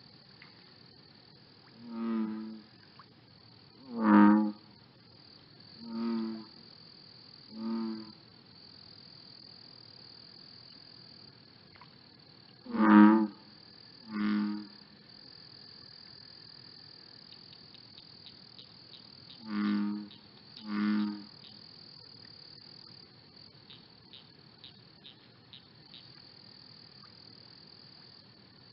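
Eight short, low croaking calls, some spaced singly and some in close pairs, over a steady high-pitched insect chorus. A run of faint ticks comes in during the second half.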